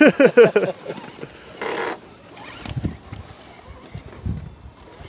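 A person laughing loudly in a quick run of short bursts for under a second at the start, followed by a few faint low knocks.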